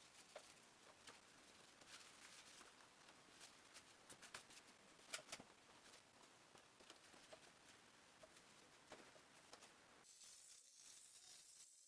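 Near silence with faint, scattered small clicks and ticks, one a little louder about five seconds in, and a faint high hiss near the end.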